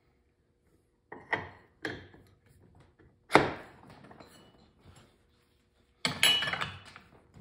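Metal clinks and knocks from a clutch sheave being turned onto a secondary post held in a bench vise, with one sharp knock about three seconds in. Near the end comes a longer metallic clatter as a large spanner tool is fitted to the sheave to tighten it.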